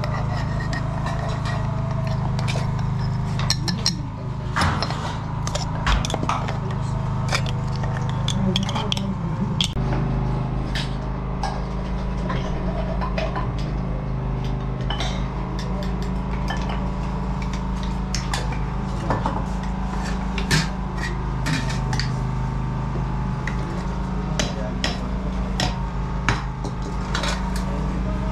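Repeated clinking of porcelain teapots, their metal lids and spoons as they are handled and filled, over a steady low hum.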